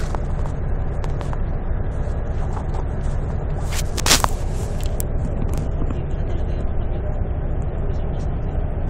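Steady low rumble of a bus or van heard from inside its cabin. About four seconds in there is a short scraping rustle as the phone brushes against knit clothing, then a few small clicks.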